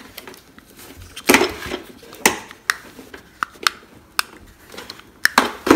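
Irregular sharp plastic clicks and knocks, about eight spread over several seconds, from a plastic toy wristband being handled and worked until it switches on.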